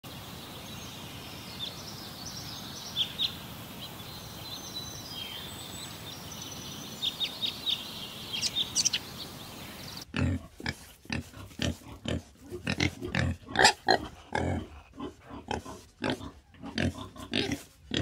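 Pigs grunting repeatedly in short, loud calls, starting about halfway through. Before that, a steady outdoor hiss with scattered high chirps.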